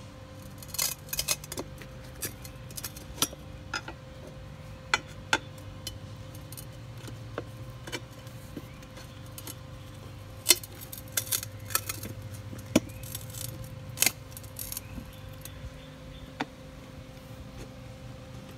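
Steel screwdriver clinking and scraping against a Honda Metro scooter's metal wheel rim while prying a new tire's bead over the rim edge: irregular sharp clicks, some in quick clusters.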